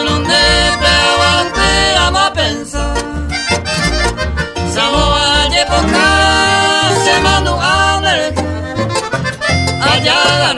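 Paraguayan polka music, an instrumental passage with an accordion carrying the melody over a steady, bouncing bass.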